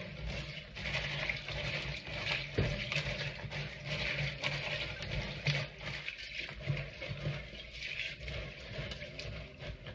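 Hands scrubbing pinto beans in a plastic tub of rinse water: a steady, busy wet rattling and swishing as the beans rub against each other and the container.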